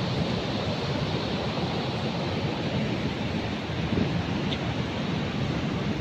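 Ocean surf breaking on a beach, a steady wash of noise, with wind blowing on the microphone.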